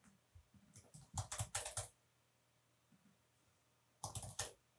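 Computer keyboard typing, faint: a quick run of keystrokes about a second in and a shorter run near the end.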